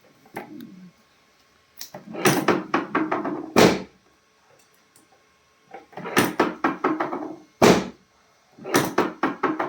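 Dull thumps and knocks from a chiropractic adjustment on a patient's body, in three quick runs of several blows, most with a heavier thud among them.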